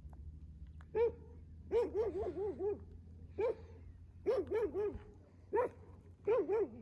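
Dog barking in short, high, arched yaps, some single and some in quick runs of three to five, over a steady low hum.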